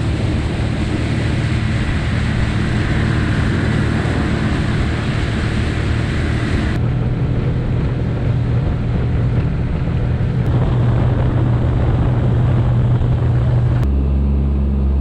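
Motorboat engine running at speed, a steady drone under a rush of wind and water. The sound changes abruptly about halfway through and again near the end.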